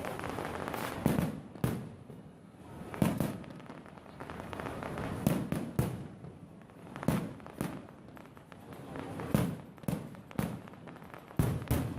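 Fireworks display: about a dozen shell bursts going off at irregular intervals, some in quick pairs, each bang trailing a brief low rumble.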